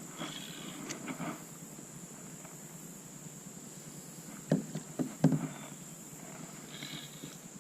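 Several sharp knocks bunched together about halfway through, over a steady high-pitched whine.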